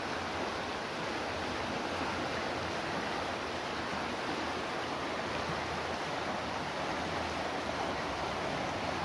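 Steady rush of a fast-flowing river running over rocks and small rapids.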